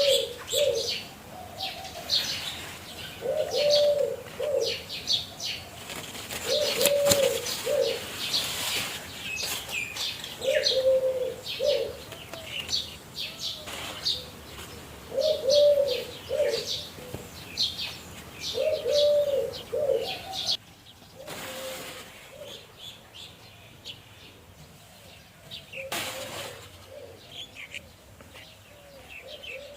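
A dove cooing in repeated short phrases every three to four seconds, with small birds chirping rapidly over it; the cooing and chirping fade out about two-thirds of the way through.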